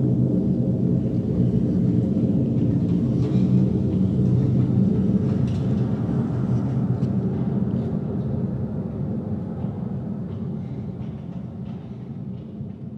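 Low, heavy rumbling synthesizer-and-effects drone played through a concert PA, fading steadily over the second half. This is the dying rumble after the crash effect that closes the piece.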